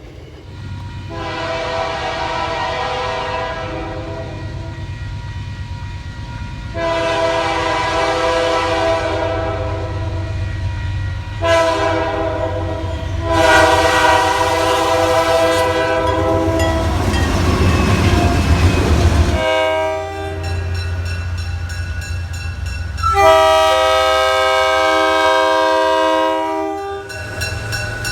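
Train air horn sounding the grade-crossing signal of long, long, short, long blasts, each blast a chord of several notes, over a steady low engine rumble. The train then rushes past. A second multi-note horn follows with more long blasts near the end.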